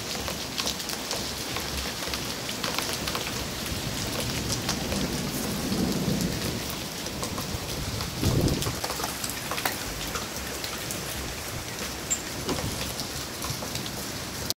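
Cyclone storm: a steady hiss of rain and wind, peppered with sharp drop-like ticks. A deeper rumble swells about five seconds in and again, loudest, just past eight seconds.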